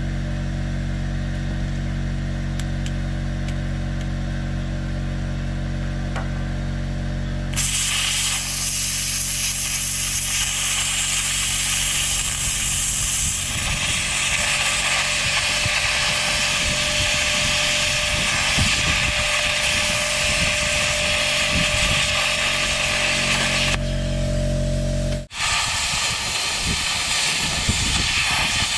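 Plasma cutter arc hissing steadily as it cuts through the nuts on the bulldozer blade's cutting-edge bolts. The hiss starts suddenly about a quarter of the way in, stops briefly near the end, and starts again. A steady machine hum runs beneath it until that break.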